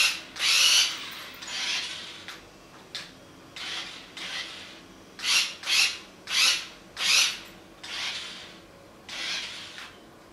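A series of short rasping scrapes, about a dozen, irregularly spaced, the loudest a quick run of four in the middle.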